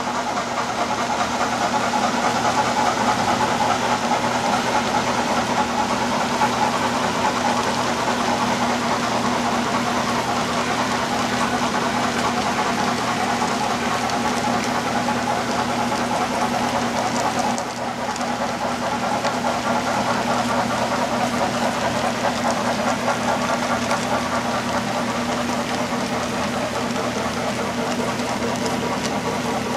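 HO-scale model tank cars rolling along the layout's track: a steady clattering rattle of small metal wheels on rail, with a constant low hum underneath.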